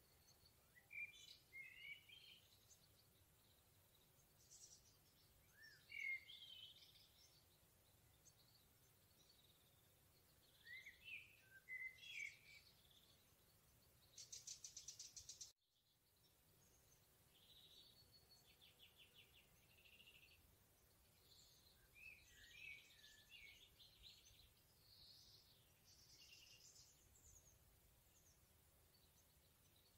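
Faint forest birdsong: several songbirds give short whistled and warbled phrases every few seconds, including a fast, dry trill, with a brief dropout about halfway through.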